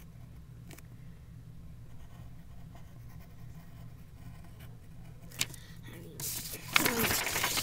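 Faint pencil scratching on paper while drawing. About five seconds in there is a sharp click, followed near the end by loud rustling and bumping as the camera is handled and moved.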